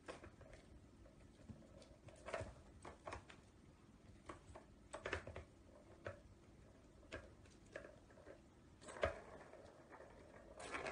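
Kittens pawing at a plastic three-tier ball-track cat toy: faint, irregular clicks and taps, the loudest knock about nine seconds in.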